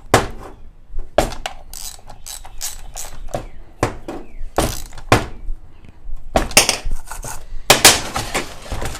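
Irregular clanks, clicks and knocks of hand tools and metal chainsaw parts being worked on a workbench, as the bar nuts are turned with a ratchet and the chain is adjusted.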